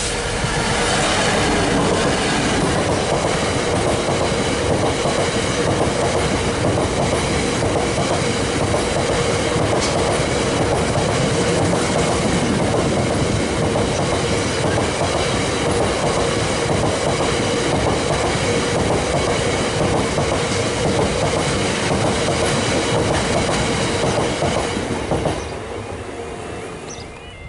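A DB Cargo Class 66 diesel locomotive passes close by, followed by a long freight train of hopper wagons rumbling and clattering over the rails with a steady whine. The noise drops away sharply about 25 seconds in as the last wagon clears.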